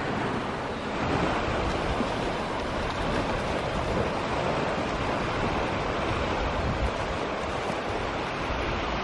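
Sea waves breaking and washing onto a pebble and rock shore: a steady rushing.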